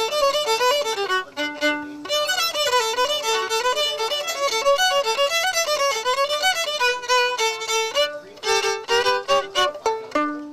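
Solo violin playing a quick, lively melody of fast-changing notes, ending on a low held note near the end.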